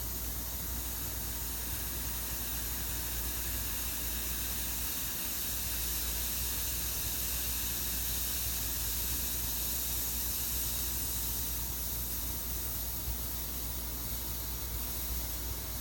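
Steady hiss of air bleeding back into an evacuated vacuum chamber through a release valve, letting the vacuum down, over a low hum.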